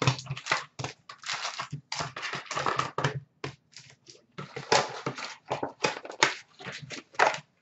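Cardboard hockey-card hobby boxes being torn open and their foil packs pulled out and set down on a counter: a quick, irregular run of rips, rustles and light taps.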